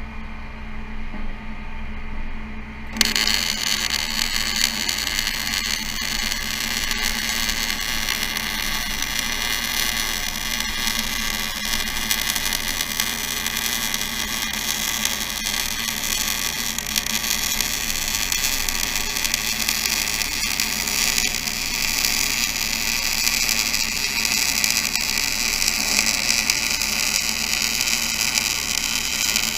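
MIG welding arc laying a continuous bead on 14-gauge steel C-purlin: a steady crackling sizzle that starts suddenly about three seconds in and runs unbroken, over a constant low hum.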